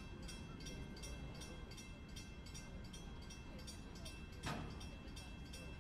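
Freight train of empty flatcars rolling across a street grade crossing: a steady low rumble of wheels on rail under the crossing bell ringing about three times a second. One loud clank about four and a half seconds in.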